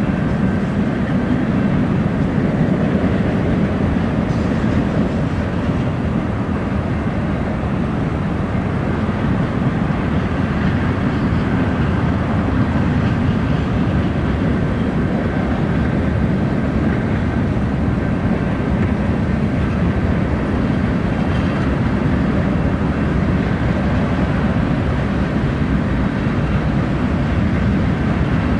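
BNSF freight train rolling through a grade crossing, its cars running past with a steady, continuous rumble.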